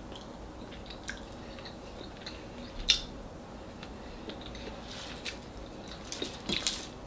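Chewing and soft mouth smacks from a mouthful of corn rice eaten by hand, with a few scattered small clicks, the sharpest about three seconds in.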